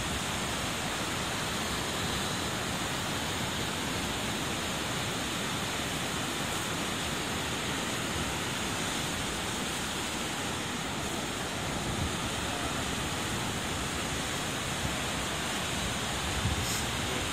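Steady rushing of the Katsura River in flood, muddy high water pouring over a weir and through rapids, an even unbroken noise.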